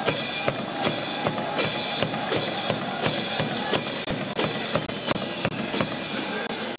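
Music with a steady, even drum beat, about three beats every two seconds.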